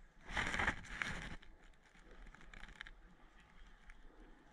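Rustling and crackling of leaves, twigs and clothing for about a second near the start, then faint scattered crackles.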